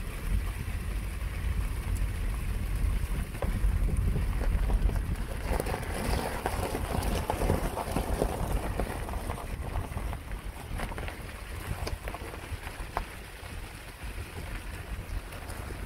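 Wind buffeting the microphone: a low rumble, strongest in the first half and easing off later, with a rougher hiss swelling briefly around the middle.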